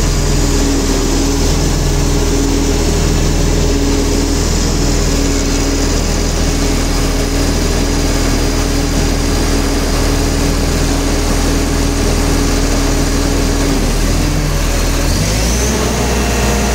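XCMG XCT60 truck crane's diesel engine running steadily, with a steady whine over the low hum; the engine note changes about fifteen seconds in.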